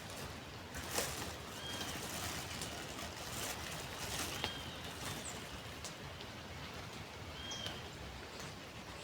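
A bird gives a short chirp three times, about every three seconds, over a steady wash of outdoor noise from the river and wind. A sharp click sounds about a second in.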